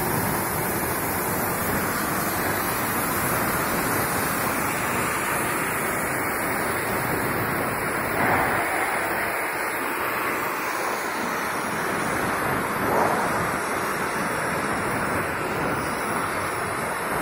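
CNC oxy-fuel cutting torch cutting through steel plate: the cutting jet gives a steady hiss, briefly louder twice in the middle.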